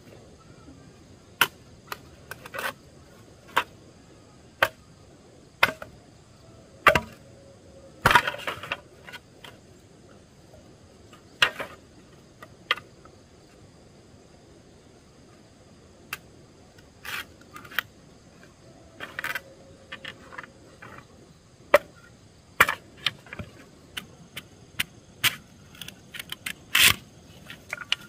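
Sharp knocks of a hand tool striking wood, one at a time at uneven intervals: about one a second at first, then a lull, then quicker clusters of blows near the end.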